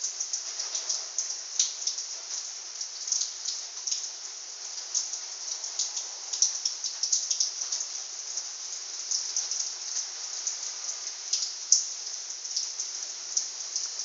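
A small pet eating from a bowl close to the microphone: quick, irregular wet clicks and crackles of chewing and lapping, with a sharper click now and then.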